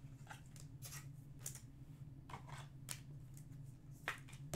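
Faint rustles and clicks of trading-card packs and cards being handled, a dozen or so short sounds scattered through, over a steady low hum.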